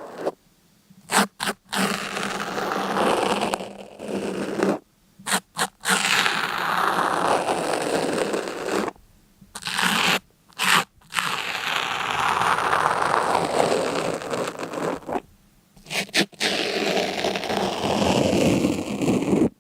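Repeated scraping, crunching strokes, some lasting two to four seconds and others short and quick in pairs or threes, with brief silent pauses between them.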